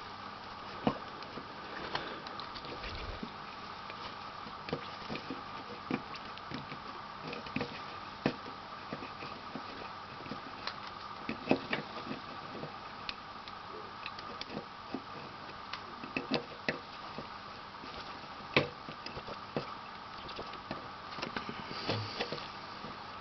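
Soldering a connector's pins on a circuit board with a fluxed iron: small, irregular clicks, ticks and crackles as the tip works joint after joint, over a steady faint hum.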